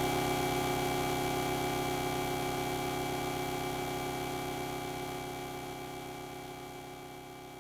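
Closing drone of a noise-rock track: a sustained buzzing hum of several steady tones over a fast pulsing low buzz, slowly fading out.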